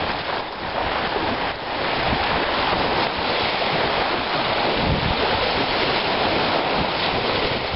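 Small waves breaking and washing up a shingle beach, a steady hiss, with wind buffeting the microphone.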